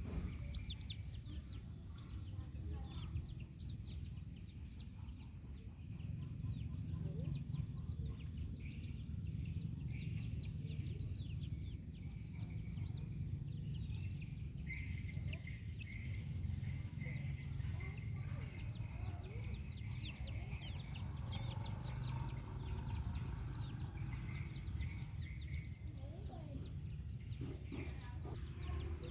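A flock of chickens with many chicks: constant high, short peeping chirps that fall in pitch, with occasional lower hen calls, over a steady low rumble.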